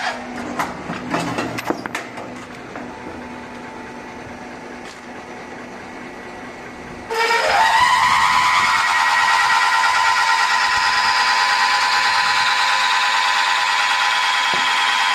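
Steel rebar coupler reaming machine: a high cutting screech stops, then a few clunks and clicks sound over a steady low motor hum as the machine cycles. About seven seconds in, the reamer bites into the next steel coupler and a loud pitched screech starts suddenly, rises in pitch over about a second and holds steady.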